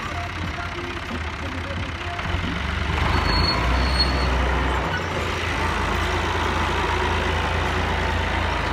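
New Holland Ghazi tractor's diesel engine running steadily, getting louder about three seconds in.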